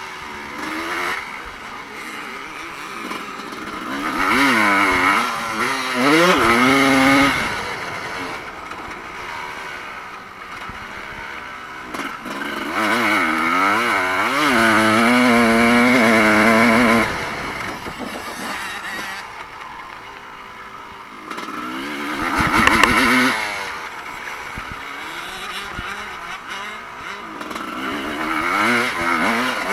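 Evo-era motocross bikes racing past, engines revving up and down in pitch as they accelerate and shift. The loudest passes come about four to seven seconds in, from about thirteen to seventeen seconds, briefly around twenty-two seconds, and again building near the end.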